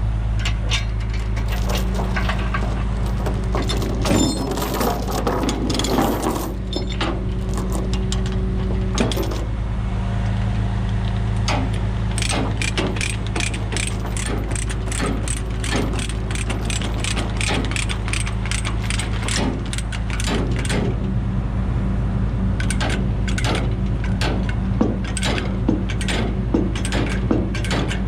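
Ratchet chain binder being cranked tight on a tie-down chain, its pawl clicking in quick runs, over a steady low engine drone.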